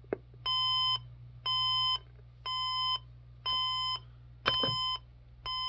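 Emerson Research SmartSet clock radio's alarm buzzer going off, preceded by a single click: an electronic beep about half a second long, repeated once a second, six times.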